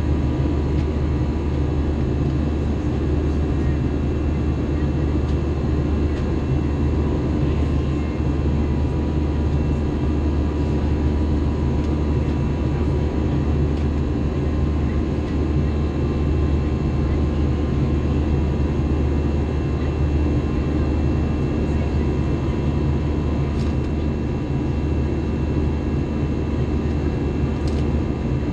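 Airbus A321 cabin noise in flight: the jet engines and rushing airflow make a steady, unchanging low rumble with a few faint steady tones above it.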